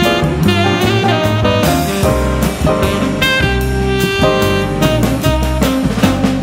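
Upbeat jazz instrumental with saxophone and a drum kit keeping a steady beat.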